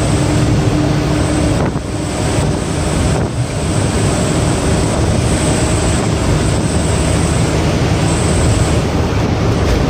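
Truck engine running under way at speed, heard from inside the cab, with road and wind noise. The sound dips briefly twice in the first few seconds.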